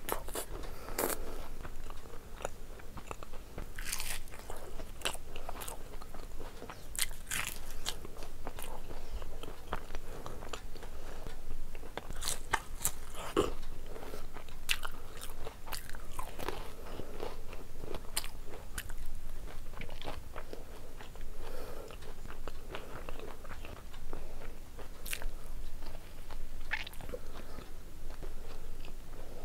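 A person biting and chewing crisp fried samosa pastry close to the microphone, with many irregular crunches and crackles.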